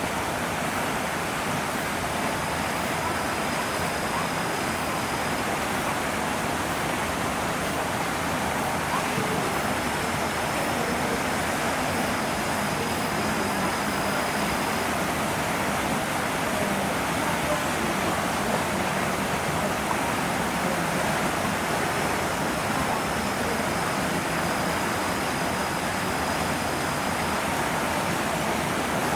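Steady rushing background noise with no distinct events. A faint, thin high tone comes and goes three times.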